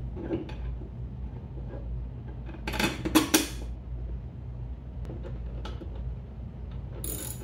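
Hand wrench and socket clinking against steel bolts and the mower's steering-column bracket as the column bolt is fitted and tightened, with a loud cluster of metallic clanks about three seconds in and scattered lighter clicks.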